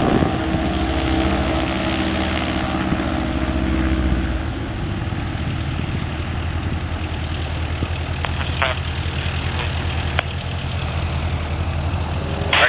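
Piston engine of a Cessna 172 Skyhawk light propeller plane running steadily. About four seconds in, its higher notes drop away and it carries on with a lower, steady drone.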